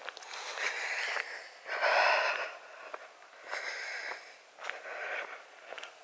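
Heavy breathing of a walker close to the microphone: four breaths about a second long, the loudest about two seconds in.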